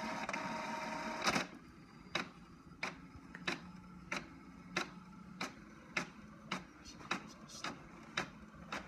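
Inkjet printer printing slowly: its mechanism whirs steadily for about a second and ends in a loud clack, then clicks at an even pace, about one and a half clicks a second.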